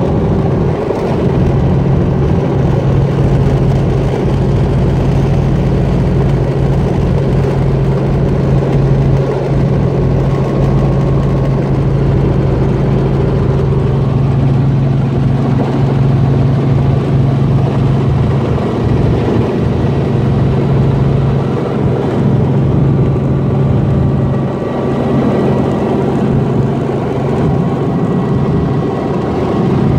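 Small four-seat helicopter's engine and rotors running, heard from inside the cabin as a loud, steady low drone while the helicopter comes in to land on grass.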